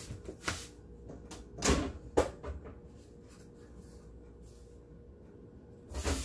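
Scattered clicks and knocks of kitchen handling off to one side, two of them louder a couple of seconds in, over a faint steady hum, with a louder rustle right at the end.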